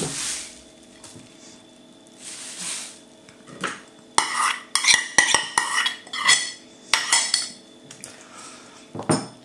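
A spoon scraping and knocking grated horseradish out of an enamel bowl into an enamel pot, in a run of sharp, ringing clinks from about four seconds in. A soft rustle of a plastic bag comes earlier.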